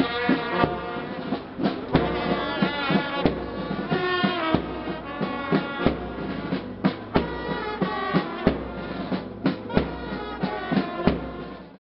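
Brass band music with trumpets and drums, the drum strikes coming at irregular intervals over held brass notes. It cuts off suddenly near the end.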